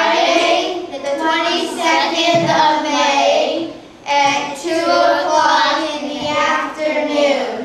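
A group of children singing together in two phrases, with a brief pause about four seconds in.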